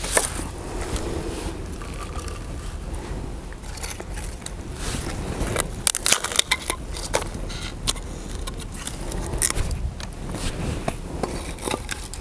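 Dry sticks and split firewood crunching, scraping and knocking as they are handled and laid into a stone hearth for a cooking fire, with a run of sharper snaps and knocks about six to seven seconds in.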